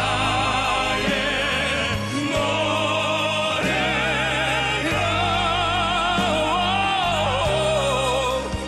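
Male singers of a crossover vocal quartet singing a ballad in operatic style with wide vibrato, over instrumental accompaniment with sustained low chords.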